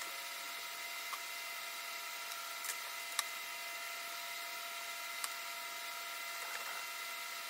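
A few light, sharp clicks and taps as painted wooden shutter louvers are handled and set in their clamped frame, with a faint rustle near the end. A steady hum runs underneath.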